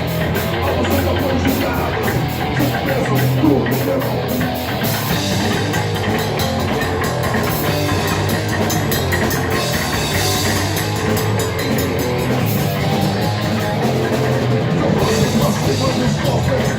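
Metal grind noise band playing loudly: dense, distorted music over a pounding drum kit, with rapid, evenly spaced hits for the first five seconds or so.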